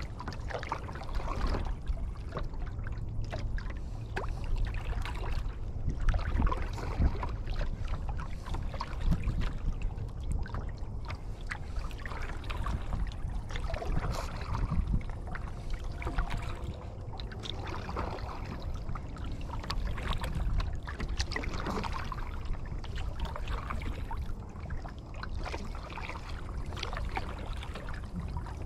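Kayak paddle strokes in lake water: the blades dip and splash every second or two, with water trickling off them between strokes, over a steady low rumble.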